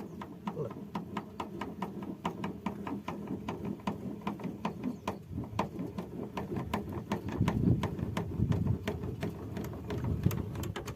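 Car scissor jack being cranked with a lever, giving a steady run of clicks about four a second over a low rumble, as the jack is wound down.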